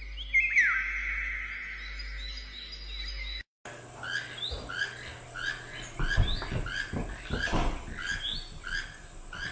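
Steady, music-like held tones with one quick downward swoop for the first three seconds or so, then a sudden break. After the break a bird chirps about twice a second, each chirp a short rising note, with soft rustling thumps in the middle.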